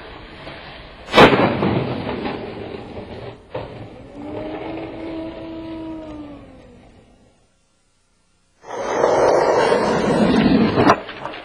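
Raw skateboarding audio: a loud crack of a skateboard hitting the ground about a second in, then wheels rolling away and fading, with a held tone in the middle that bends up and falls away. After a sudden cut to silence, another stretch of rolling noise begins with a click near the end.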